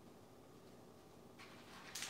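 Near silence: quiet kitchen room tone with a low steady hum, and a faint rustle coming in near the end.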